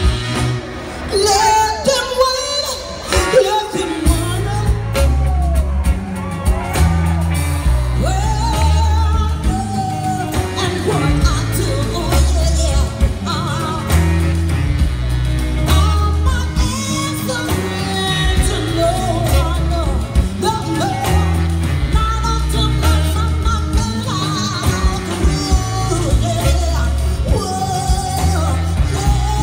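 Live soul band playing over a PA: a woman sings lead over a heavy, moving bass line, drums, electric guitars and horns.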